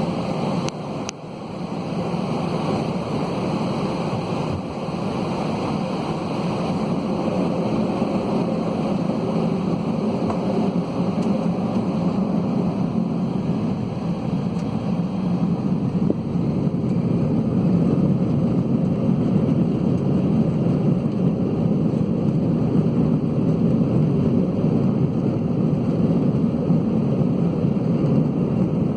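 Steady rush and rumble inside the cabin of an Airbus A320-211, from its CFM56 jet engines and the airflow, growing somewhat louder over the stretch, with a brief drop about a second in.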